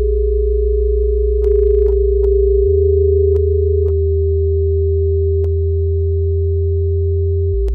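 Minimal experimental electronic music: a steady pure sine-like drone over a deep bass tone that shifts about a third of the way in and again near the end, with a few scattered sharp clicks.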